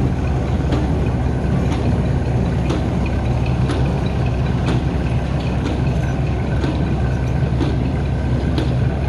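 An old engine running steadily at idle, with a sharp click about once a second.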